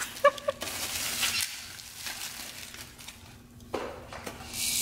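Plastic bubble wrap crinkling and rustling as it is pulled off a small metal tin, with a louder stretch of crinkling near the end.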